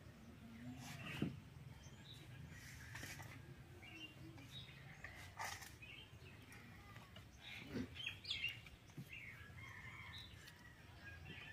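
Faint birds chirping, with a few short clinks and scrapes of steel plates and a steel spoon as curry is ladled into small steel bowls; the loudest clinks come about a second in and again around eight seconds.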